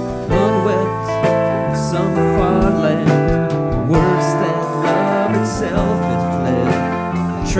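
Live rock band playing: guitars over a steady drum beat, with a wavering melody line on top.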